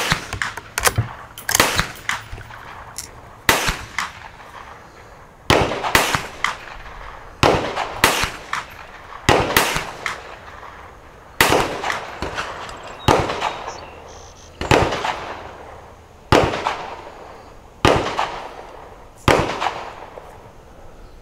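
Repeated gunshots on an outdoor range, about a dozen sharp cracks roughly every two seconds, each with a short echoing tail.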